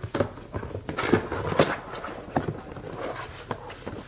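Heavy plastic panels of a magnetic fold-up photo light box being folded in by hand: a string of irregular clicks and knocks as the magnet-held panels come apart and fold, the loudest about a second and a half in.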